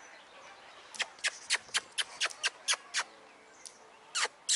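Otters calling: a rapid series of short, sharp, high-pitched chirps, about four a second, starting about a second in. They pause for about a second, then resume near the end.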